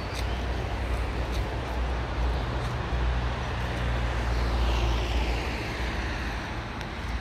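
Road traffic: a steady low rumble of passing vehicles, with one vehicle going by about four to six seconds in, its sound falling in pitch as it passes.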